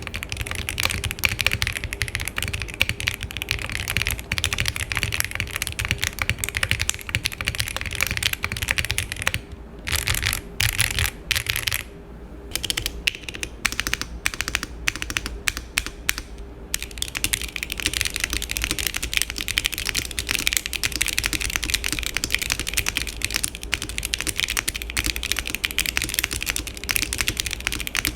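Fast typing on a mechanical keyboard fitted with Akko Matcha Green V3 Pro switches: rapid, continuous keystroke clacks, first on a cork-foamed build. About ten seconds in the typing thins to slower, separate keystrokes, with a brief lull, then resumes densely on a foamless aluminium build.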